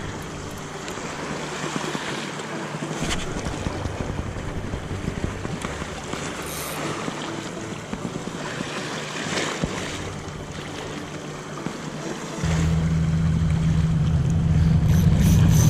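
Wind on the microphone and sea ambience, with a few faint clicks from handling the spinning rod and reel. About twelve seconds in, a low, steady engine hum from a passing boat comes in suddenly and grows louder.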